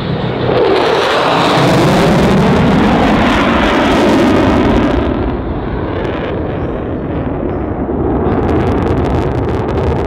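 F-16 fighter jets passing with a loud jet-engine roar. It swells about half a second in and eases after about five seconds, then another jet's roar builds near the end as it comes in.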